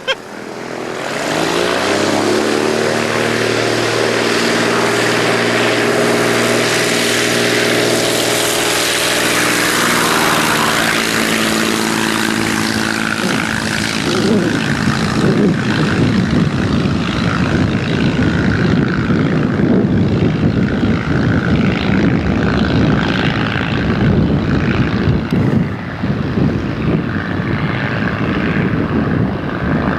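Light propeller aircraft's piston engine coming up to a steady high power in the first couple of seconds and holding it. About halfway through, the even engine tone gives way to a rougher, noisier propeller-and-engine sound.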